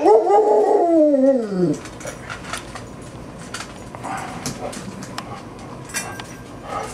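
A springer spaniel gives one long howl that slides down in pitch and dies away after about two seconds, then fainter sounds follow.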